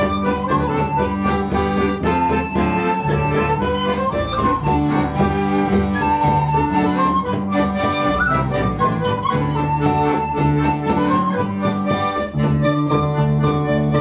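Folk band playing a polka: accordion, whistle, bodhrán and acoustic guitar, the melody over a steady bouncing beat.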